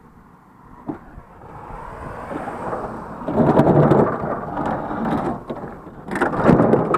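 Refrigerator rolling on its small wheels over cracked concrete sidewalk: a rough, rumbling noise that grows louder, loudest near the middle and again near the end, with a few knocks.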